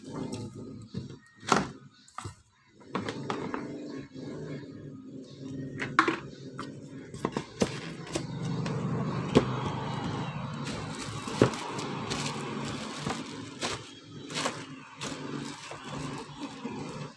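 Background music with a steady low accompaniment, broken by scattered sharp knocks and clicks.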